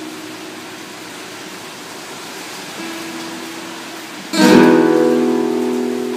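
Nylon-string classical guitar: soft held notes fading, then about four seconds in a loud strummed chord that rings out and slowly dies away. It is the closing chord of the song.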